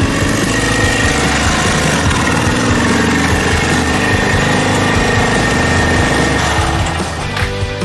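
Suzuki GN250's single-cylinder four-stroke engine running at idle, easing off about seven seconds in.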